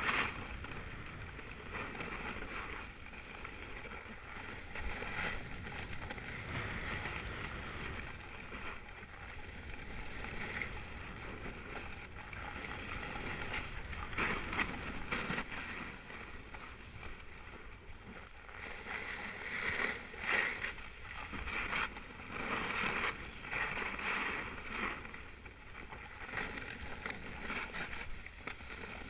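Edges hissing and scraping over packed snow while descending a ski run, swelling with each turn.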